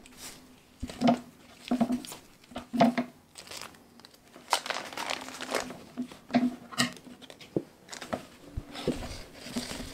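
Stiff printed cross-stitch canvas rustling and crinkling as it is unfolded and smoothed flat by hand, in irregular bursts of handling.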